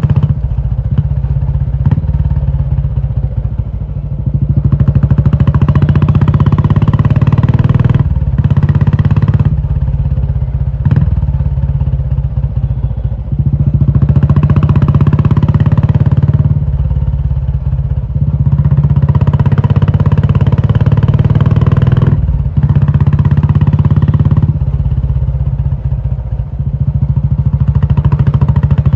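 Royal Enfield Classic 350's single-cylinder engine running through a loud aftermarket Indore exhaust. The exhaust note swells and eases several times as the throttle is opened and closed, with louder spells of two to three seconds, and there are a few short clicks or knocks.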